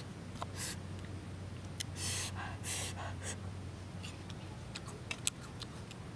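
A person eating star fruit dipped in chili salt: a few sharp, hissing intakes of breath around the middle, then a run of small clicks of mouth and knife sounds while chewing, over a steady low hum.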